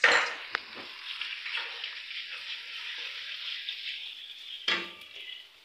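Ginger-garlic paste frying in hot oil in an iron karahi, a steady sizzle as it is stirred with a wooden spatula. A knock at the very start and another sharp knock near the end, after which the sizzle dies down.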